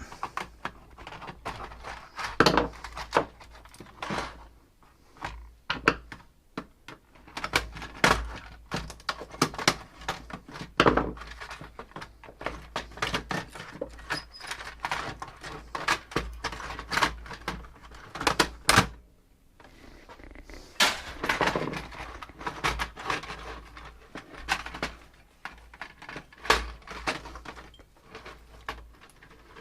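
Repeated clicks, knocks and rattles of small screws and plastic and metal parts being handled and set down as a Dell docking station is taken apart by hand.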